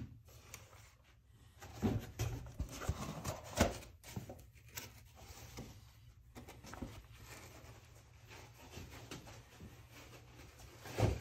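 Handling noise from a toy car being packed back into its foam insert and cardboard box: soft rubbing, rustling and light knocks, busiest in the first few seconds and fainter after. A louder thump comes near the end.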